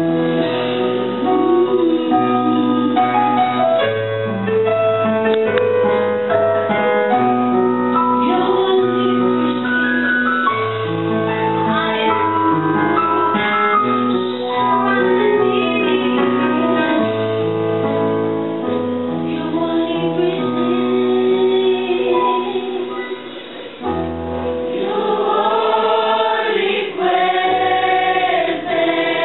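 A church choir singing a slow gospel hymn over an electronic keyboard that holds bass notes changing about once a second. The music dips briefly about two-thirds of the way through, then the voices come forward more strongly.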